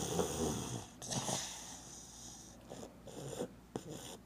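Pug dog making its weird needy noises, asking for more rump scratching. It opens with a low pitched sound in about the first second, then fainter breathy snuffles.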